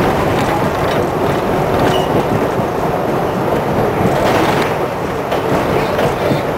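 R62A subway train moving along elevated track, heard from inside the front of the car: steady wheel-on-rail running noise with faint clicks.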